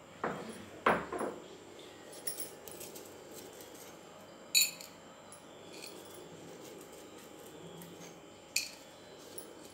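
A small steel bowl scraping and clinking against a stone mortar as pounded coriander seeds are scooped out of it by hand. Two scrapes come within the first second, then two sharp metallic clinks about four seconds apart.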